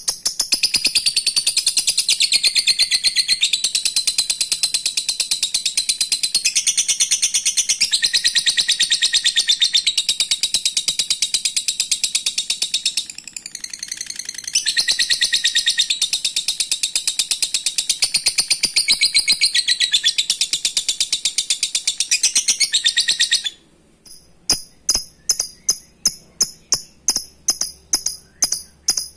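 Fischer's lovebird giving a long, unbroken, very rapid chattering trill, the long 'ngekek' call, which dips briefly about halfway through. Near the end it stops abruptly and gives way to separate sharp chirps, about three a second.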